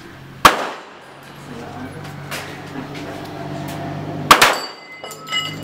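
Two handgun shots about four seconds apart, each a sharp crack followed by a short echo, with a fainter crack between them. A brief metallic ringing comes near the end.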